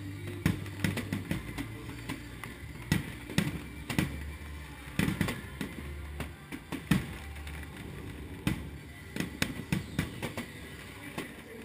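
Aerial firework shells bursting overhead: irregular sharp bangs and crackles, at times several a second, over background music with a low bass line.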